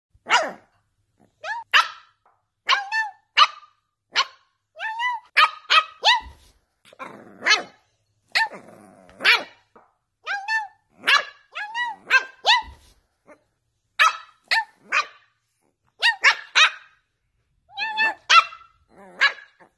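Boston terrier puppy barking in many short, high-pitched yaps that come in quick clusters, with a low growl about seven to nine seconds in. It is an angry reaction.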